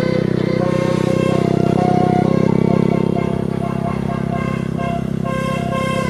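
A bus engine runs steadily while a multi-note telolet horn plays a tune over it in held notes that step from pitch to pitch.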